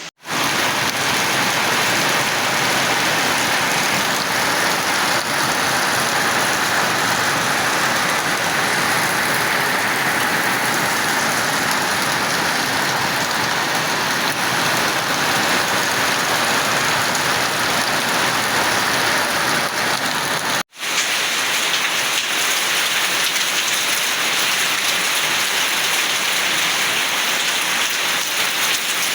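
Steady rain falling. It breaks off for a moment about two-thirds of the way through, then carries on.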